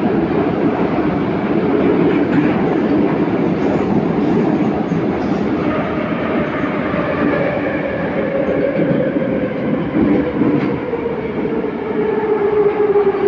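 Interior running noise of a Minsk metro train (81-714.5 car): steady rumble of wheels on rail. About halfway in, a traction-motor whine comes up and slowly falls in pitch as the train loses speed.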